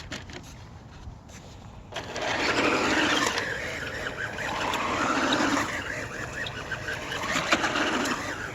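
Ryobi 18-volt RC car driving, its electric motor and tyres on the ground making a rushing, scraping sound that starts about two seconds in and shifts as it moves.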